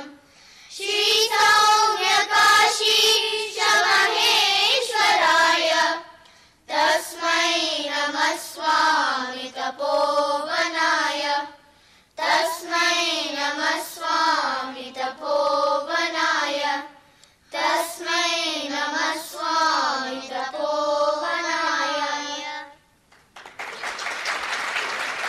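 A group of children chanting Sanskrit shlokas in unison to a melody, in phrases of a few seconds with short breaths between. The chanting ends about 23 seconds in, and applause begins.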